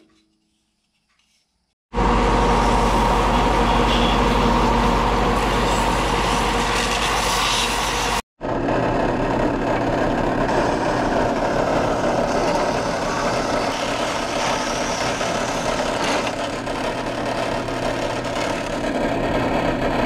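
Shop power tools working a wooden handle. After a second or two of silence, a motor runs steadily under load for about six seconds. After a sudden break, a drill-press drum sander grinds the wood.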